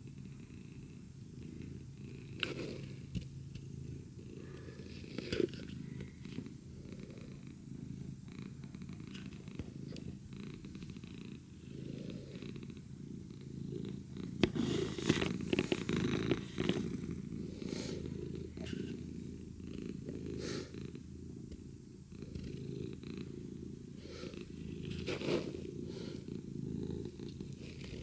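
A steady low rumble throughout, with scattered light clicks and taps above it, busiest about halfway through.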